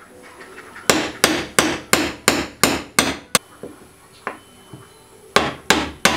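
Claw hammer striking a drill bit stuck in a plywood board to knock it loose. A quick run of about eight blows comes at roughly three a second, then a pause with a couple of light taps, then three more blows near the end.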